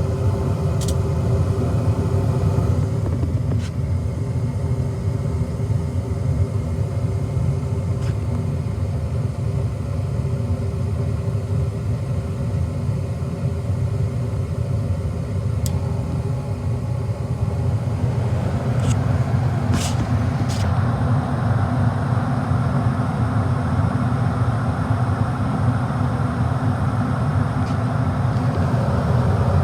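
Gas furnace running with a steady low rumble and hum, a few sharp clicks here and there. From about eighteen seconds in a louder rushing noise joins it.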